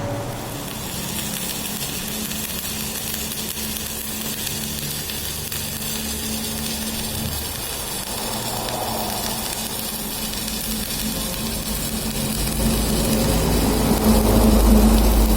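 Electric arc welding: the steady crackling sizzle of the arc over a low hum, growing louder near the end.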